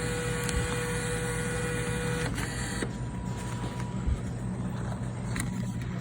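Snack vending machine's dispensing motor whirring steadily, then stopping a little over two seconds in; a soft thump follows about four seconds in.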